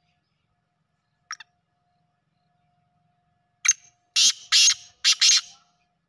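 Black francolin calling: one short note about a second in, then its loud call of five quick, harsh notes in the second half.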